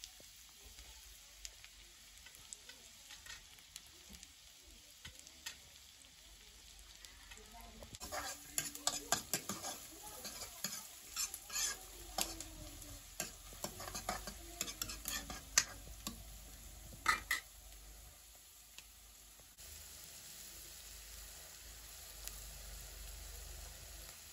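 Food sizzling steadily in a hot pan. From about a third of the way in to about two-thirds, a utensil scrapes and knocks against the pan in a run of quick strokes as the food is stirred.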